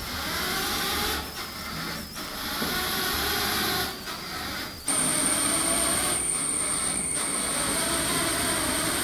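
Small DC gear motors whirring as a homemade wheeled robot drives across a tiled floor under phone control. About five seconds in the sound gets louder and a steady high whine comes in.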